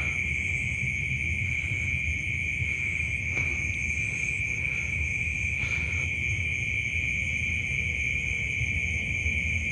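A chorus of night insects, crickets by their sound, keeping up one steady high-pitched trill, over a low rumble.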